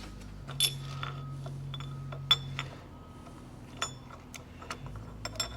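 Metal parts and tools clinking and clicking as they are handled on the milling machine, several knocks with a short high ring after them, about eight in all. A low hum runs underneath, a little stronger in the first half.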